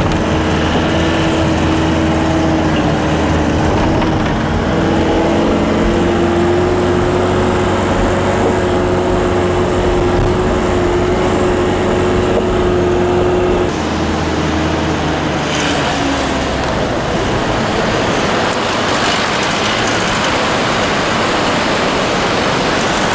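Vehicle engine and road noise heard from inside the cabin while driving on a rough mountain road. A steady engine hum rises slowly in pitch, then changes about 14 seconds in, after which mostly rumbling road noise remains.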